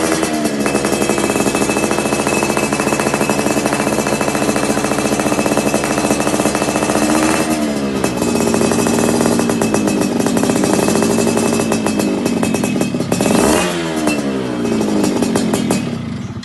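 Yamaha F1ZR two-stroke motorcycle engine running hard through its exhaust, its pitch dipping and climbing back a few times under throttle changes, then dropping away at the end.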